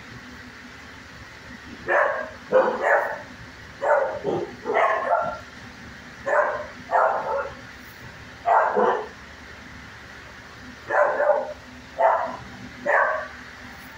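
Dog barking: short sharp barks, some single and some in quick runs of two or three, with pauses of a second or two between groups.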